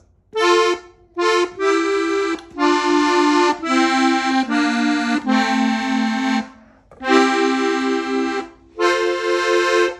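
Hohner diatonic button accordion in F playing a melody in two-note harmony, in short phrases split by brief pauses. The notes step downward through the middle, then jump back up about seven seconds in.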